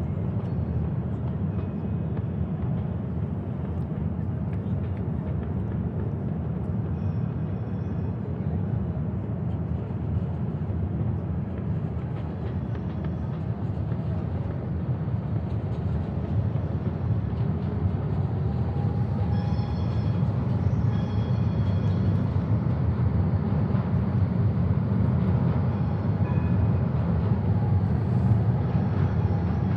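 Night city ambience: a steady low rumble, growing slightly louder in the second half, with faint higher-pitched tones coming and going about two-thirds of the way through.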